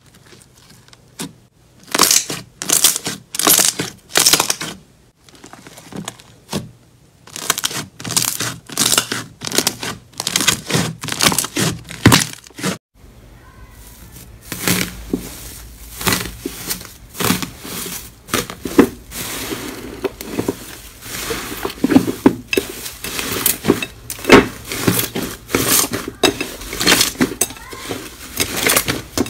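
Hands pressing and folding a soft yellow slime: a run of wet squishes and air-pocket pops. About halfway through, gold foil laid over an inflated slime crinkles and crackles as hands press it, and near the end a dark slime with foil flakes in it squelches as it is kneaded.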